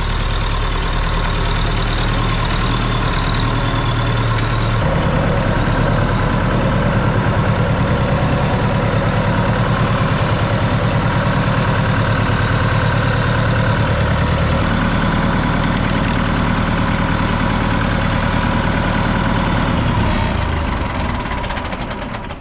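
Massey Ferguson 168's four-cylinder Perkins diesel engine running steadily, its engine speed shifting about five seconds in and again about fifteen seconds in, then winding down and stopping near the end.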